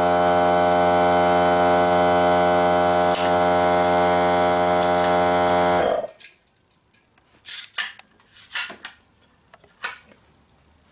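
Greenworks 40V cordless air compressor running with a steady hum, then cutting out abruptly about six seconds in as it reaches pressure. After it stops, a pneumatic nailer fires three or four sharp shots into the wooden pallet.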